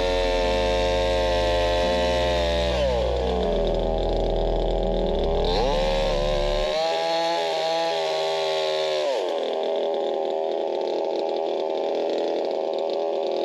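Cheap unbranded two-stroke gas chainsaw running at high revs. Its engine pitch drops about three seconds in, climbs again around six seconds, and drops once more around nine seconds.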